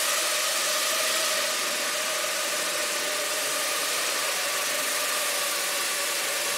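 Small quadrotor drone in flight, its propellers giving a steady buzzing hum at a constant pitch over a broad hiss.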